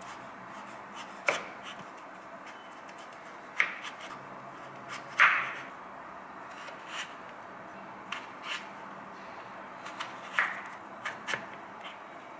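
Kitchen knife slicing through raw potato and knocking on a wooden cutting board as the potato is cut into thick fry strips. A handful of separate knocks at irregular intervals, the loudest a little past five seconds in, over a steady low hiss.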